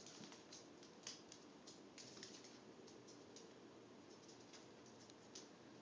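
Near silence broken by faint, irregular light clicks, a few a second: a small dog's claws ticking on a tiled floor.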